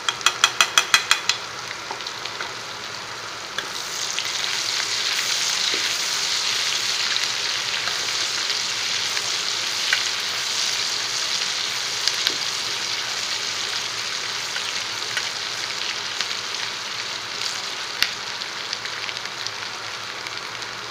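Sliced onions sizzling in hot oil in a steel pan and stirred with a spatula, with scattered small scrapes and clicks: onions being fried until browned and crisp. A quick run of about eight sharp taps comes at the very start, and the sizzle grows louder about three and a half seconds in.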